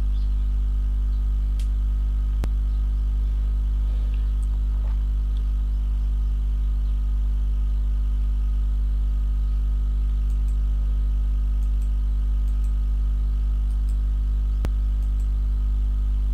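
Steady low electrical hum with a stack of evenly spaced overtones, unchanging throughout, with two brief faint clicks, one about two and a half seconds in and one near the end.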